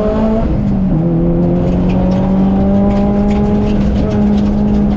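Engine of a 2010 Subaru Impreza WRX STI hatch, a turbocharged 2.5-litre flat-four, heard from inside the cabin under power. It revs up, drops in pitch about half a second in at a gear change, then pulls at a nearly steady pitch.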